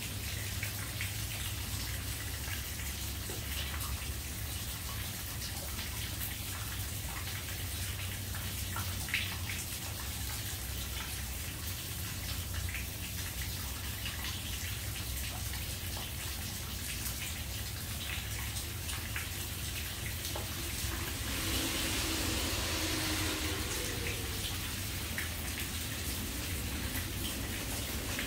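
Water running and splashing steadily, with scattered small drips over a steady low hum. A louder hiss swells in about three quarters of the way through.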